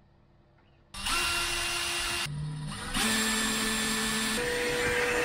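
Cordless drill running in two bursts: a short run about a second in, a brief pause, then a longer run whose motor whine steps up in pitch near the end.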